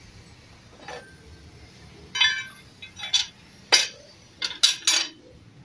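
Metal parts clinking and tapping against one another, about seven sharp strikes, a couple of them ringing briefly.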